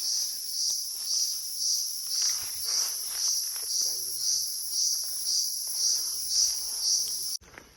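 Chorus of forest insects: a shrill, high buzz that swells and fades about twice a second over a steady, even higher hiss. It cuts off suddenly near the end.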